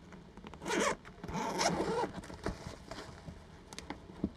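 Camera backpack's zipper pulled open in two rasping strokes about a second in, followed by softer fabric rubbing and small knocks as the open bag is handled.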